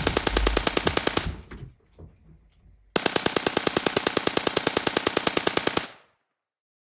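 Rapid automatic machine-gun fire, about ten shots a second: one burst stops about a second in, and a second burst starts about three seconds in, runs nearly three seconds and cuts off suddenly.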